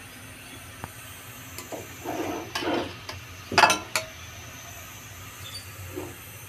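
Steel spatula scraping through cooked rice in a steel wok and scooping it onto a ceramic plate, ending in a sharp metal scrape and clink about halfway through, the loudest sound. A faint steady low hum runs underneath.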